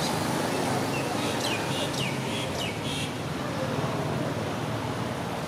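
Steady outdoor background noise, with a quick run of about five short, high, falling chirps about a second in that last under two seconds.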